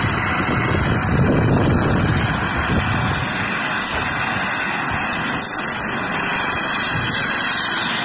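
Coast Guard MH-65 Dolphin helicopter running on the runway with its main rotor turning. Its twin turboshaft engines and rotor make a loud, steady rush of noise with a thin high whine over it.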